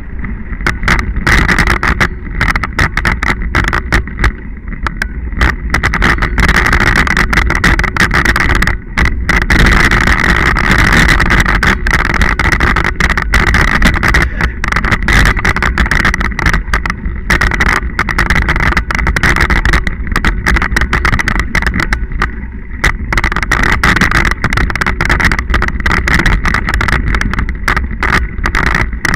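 Scott Genius 40 full-suspension mountain bike ridden along a dirt and gravel trail, heard from a camera mounted on the bike: a steady, loud rumble of tyres, frame and mount over rough ground, thick with rapid clicks and rattles from bumps and flying dirt.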